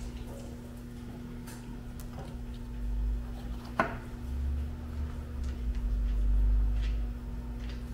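Kitchen knife slicing a red bell pepper on a plastic cutting board: a few scattered sharp taps of the blade hitting the board, the sharpest about halfway through. A deep rumble swells in the middle and later part, under a steady low hum.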